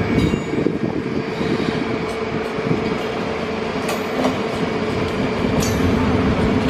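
A long train of wagons rolling past on the station tracks during shunting: a steady rumble of wheels on rail with a low steady hum, and a few sharp clicks as wheels cross rail joints.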